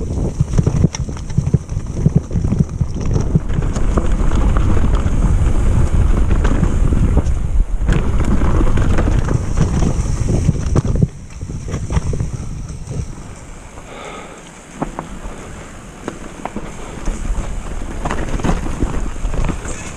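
Wind rushing over the camera microphone during a downhill mountain-bike descent on a muddy trail, with knocks and rattles from the bike over the rough ground. The rush drops off sharply about eleven seconds in as the bike slows, leaving quieter tyre and rattle noise.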